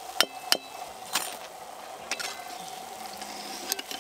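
Aloo chops deep-frying in hot oil in a steel wok, a steady sizzle, with several sharp clinks as a metal slotted spoon knocks against the wok while lifting the chops out.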